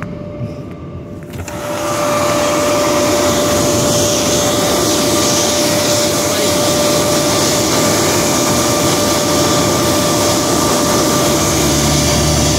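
Proto-Vest car-wash dryer blowers running: a loud, steady rush of air with a steady whine from the squirrel-cage blower wheels, swelling up about two seconds in.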